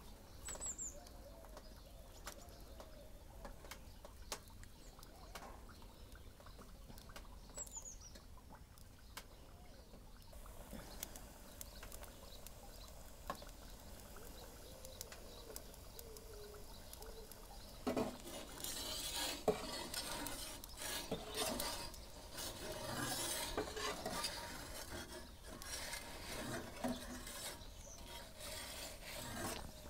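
Faint crackle of the wood fire in an Ooni Karu 12 pizza oven, then, a little past halfway, a perforated metal pizza peel scraping and clattering on the oven's baking stone as the garlic bread is turned.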